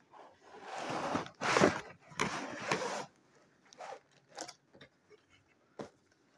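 Cardboard and plastic packaging being handled: the headphone box's inner box, with its clear plastic tray, is slid out of its cardboard sleeve with three scraping, rustling strokes over about three seconds, then a few light taps as it is set down.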